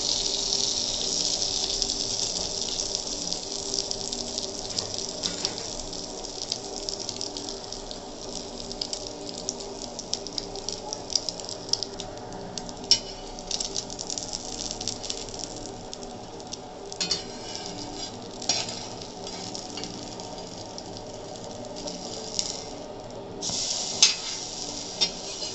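Egg-dipped bread slice frying in melted butter on a cast-iron dosa pan over a low flame: a steady sizzle that dies down over the first several seconds, with scattered crackles and pops.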